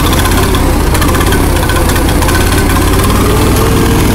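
Allis-Chalmers One-Seventy tractor's four-cylinder gasoline engine running steadily on a little extra throttle just after starting. It runs with a miss, which the owner puts down to the second or third cylinder not firing and to fuel not reaching the carburetor well enough.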